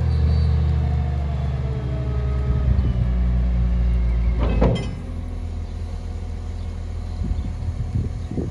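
Caterpillar 924H wheel loader's diesel engine running hard while the bucket is raised on the lift arms, then dropping to a lower, quieter run about halfway through, with a short rattle at the change.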